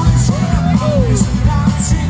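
A live folk-rock band playing amplified through a PA, heard from the audience: drum kit, bass and guitars, with a melody line sliding up and down in pitch.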